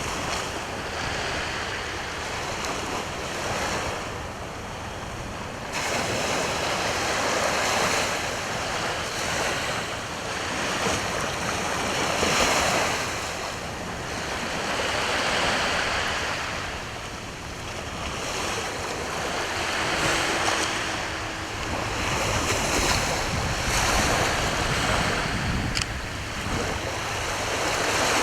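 Sea waves breaking and washing on the shore. The surf swells and falls back every three to five seconds.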